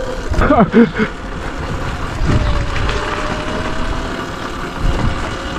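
Wind rumbling on the microphone and tyre noise as an electric dirt bike rolls slowly at about 10 km/h, with a faint steady motor whine.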